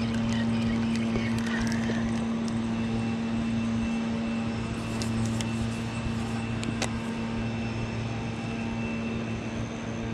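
A steady mechanical hum at one unchanging low pitch, with a few faint clicks near the middle.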